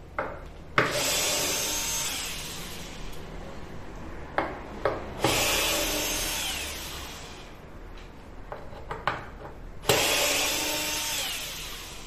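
Cordless drill-driver backing Torx screws out of a metal mounting bracket on a wooden door panel, in three runs of about two seconds each. Each run starts with a sharp click and trails off, with small clicks of the bit and screws between runs.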